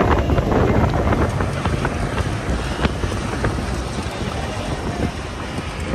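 Wind buffeting the microphone over a steady low rumble, with scattered small clicks and knocks.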